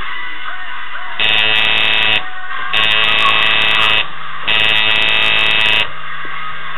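Electric tattoo machine buzzing as the needle is worked into skin, in three runs of about a second each with short pauses between them.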